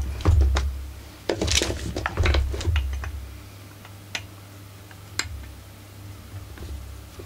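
Small metallic clicks and scrapes of a screwdriver working a screw loose on a chainsaw's engine housing. A low handling rumble runs through the first three seconds, followed by two sharp single clicks about four and five seconds in.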